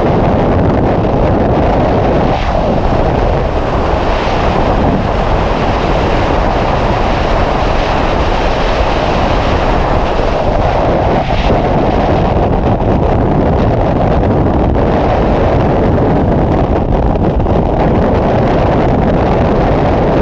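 Steady rush of the freefall airstream buffeting the camera's microphone during a tandem skydive, loud and even throughout.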